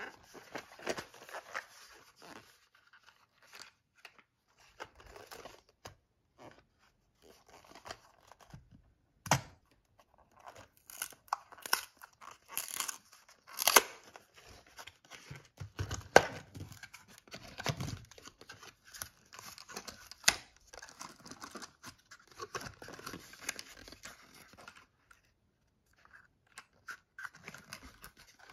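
Cardboard ammunition box being handled and its glued end flap torn open: irregular tearing, crinkling and scraping of paperboard with a few sharp cracks, then a short pause near the end.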